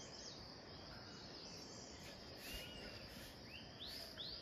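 Faint outdoor morning ambience: a steady high insect hum, with a bird giving a short thin whistle about halfway through and then a quick run of rising chirps near the end.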